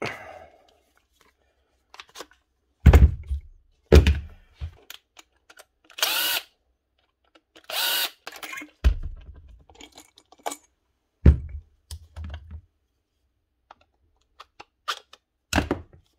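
A Makita DGA463 cordless angle grinder being handled and its stiff, sticking switch lever worked: a string of clunks and knocks with fainter clicks between them, and two short harsh scraping sounds about six and eight seconds in. The switch is jammed with dust and grit, so it won't go fully up and the grinder won't start.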